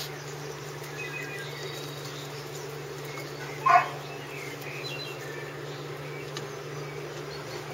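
A puppy gives one short, sharp yelp about three and a half seconds in, over a steady buzzing hum.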